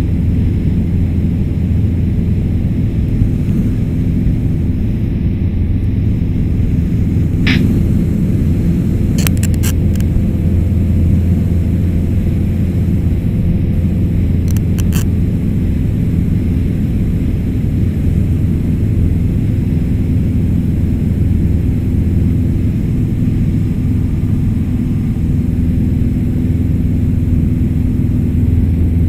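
Light aircraft's piston engine and propeller droning steadily in cruise, heard inside the cabin as a deep, even rumble. A few faint clicks come at about 7, 9 and 15 seconds in.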